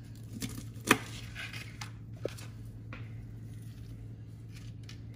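Crispy fried chicken tenders being cut and picked apart by hand on a plastic cutting board: light crunching and knocks, the loudest a sharp knock about a second in. A low steady hum runs underneath.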